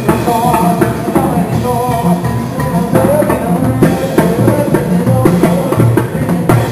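Live Mexican banda music: trumpets, trombones and a sousaphone playing over drums, the sousaphone carrying a steady bass line, with a male vocalist singing into a microphone.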